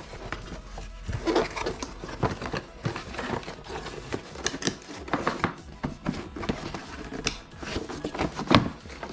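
Close-up handling noise: irregular rubbing and scraping with light clicks and knocks, the loudest knock about eight and a half seconds in.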